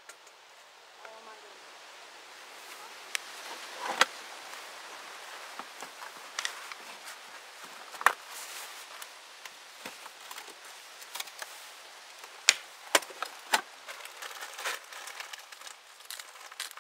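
Scattered sharp clinks and knocks as a wooden spoon and a hinged steel lid work against a steel camp pot on a small twig-burning stove. The loudest knocks come about four and eight seconds in and around twelve to thirteen seconds in.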